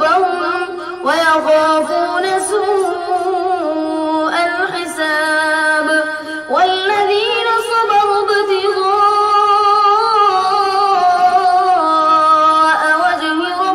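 A boy's high voice reciting the Quran in the melodic, chanted style of a qari, holding long notes with wavering ornaments; new phrases begin with an upward swoop about one, four and a half, and six and a half seconds in.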